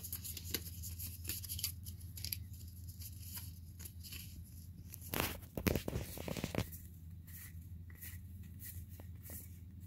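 Pokémon trading cards being flipped through and slid against one another in the hands, making short clicks and snaps, with a louder rustling stretch of card shuffling about five to six and a half seconds in.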